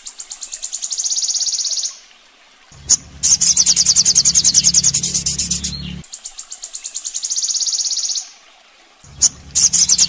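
Sogon (sunbird) song for a masteran training track: long runs of very fast, high-pitched trilling, broken twice by a short pause and a single sharp note, repeating like a loop.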